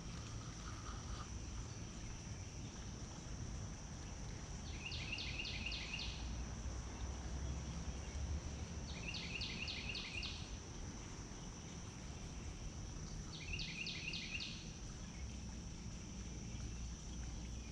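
Outdoor summer ambience: a steady high insect drone, with a short burst of five or six quick chirps repeating about every four seconds, over a low rumble.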